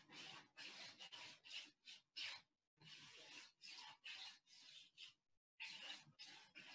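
Faint, scratchy strokes of a 2-inch paintbrush dragged across canvas, laying white paint for snow. The strokes come about two a second in short runs, with brief pauses about two and a half and five seconds in.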